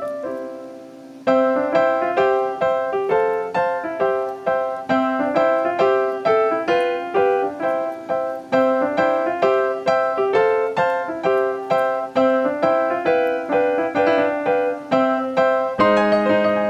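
Background instrumental music: a tune of short, decaying notes with a steady, bouncy beat. It dips briefly about a second in and moves into a new passage near the end.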